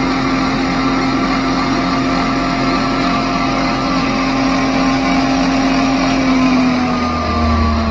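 Emco Unimat SL mini lathe running, its 90-watt motor driving the spindle and four-jaw chuck with a brass bar: a steady hum with several higher tones, the pitch sagging slightly near the end.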